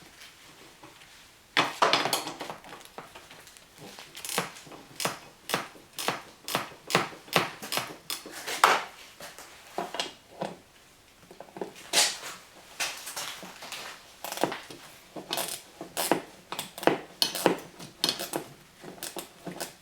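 Wrench clicking and clinking on the 14 mm nuts that hold the windshield wiper arms as they are loosened: a run of sharp metallic clicks, often about two a second, with short pauses.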